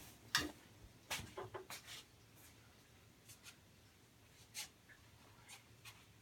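Harbor Breeze Builder's Best ceiling fan coasting down after being switched off: a faint low hum with scattered, irregular light clicks and ticks, a few more of them in the first couple of seconds.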